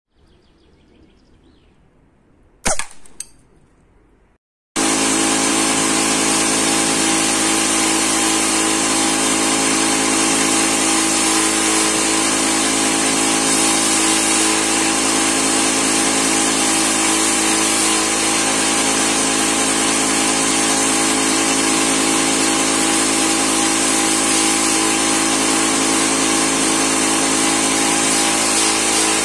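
A homemade PCP air rifle with a solenoid valve fires once, a single sharp shot about three seconds in. From about five seconds on, a loud, steady mechanical hum with hiss runs on without change.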